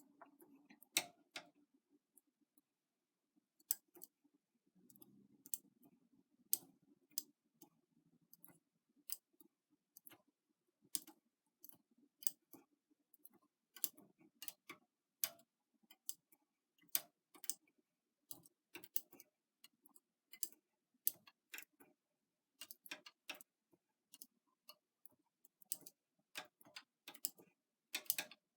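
Irregular light clicks, a few a second, of a latch tool and latch needles on a knitting machine as stitches are worked off one by one.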